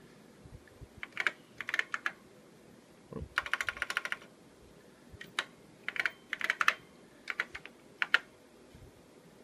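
Apple IIe keyboard being typed on: several short bursts of keystrokes, with the quickest run of clicks about three and a half seconds in, as a login name is entered.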